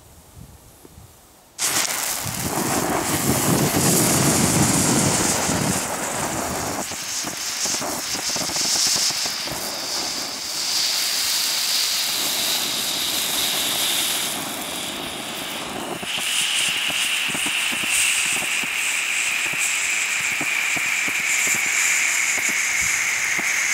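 A Celebration Cake fountain firework catching about a second and a half in, then spraying sparks with a loud, steady rushing hiss. In the last part a whistling tone slowly falls in pitch.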